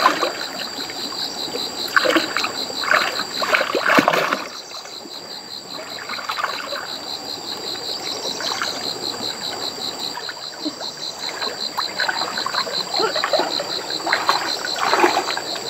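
Irregular splashing and sloshing of shallow water, busier in the first few seconds and again near the end.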